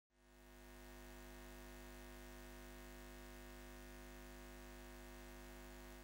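Faint, steady electrical hum with a low drone beneath it, fading in over about a second and fading out near the end.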